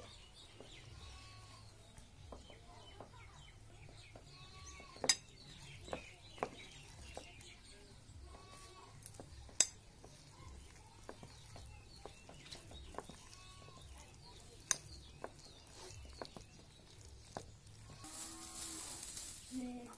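Hand squishing and stirring a mashed banana-stem mixture in a ceramic bowl, with a few sharp clinks of bangles and fingers against the bowl. Near the end, a rustling hiss of dry straw being handled at a clay stove.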